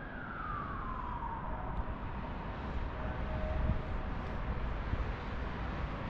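A distant wailing tone that falls in pitch over about a second and a half, followed by a fainter steady tone, over low wind rumble on the microphone.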